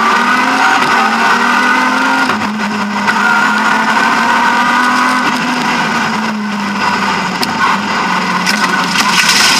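A BMW E36 M3's straight-six engine under hard driving, heard from inside the cabin. Its pitch climbs and drops several times as the driver works the throttle and shifts gears.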